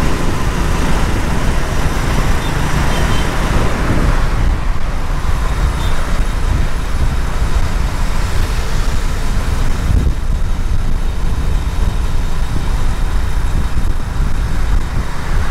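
Steady road noise from riding on the back of a moving motorcycle taxi: a low rumble of wind and the bike's engine, with passing traffic. The noise is fuller for the first four seconds, then settles lower.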